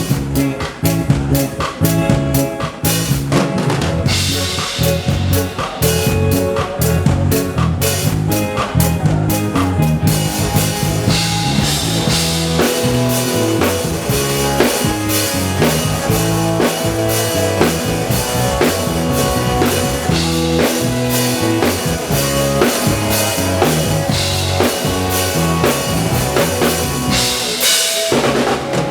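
A live band playing a song with a steady drum-kit beat of kick, snare and rimshots over bass and other instruments, picked up by a camera microphone.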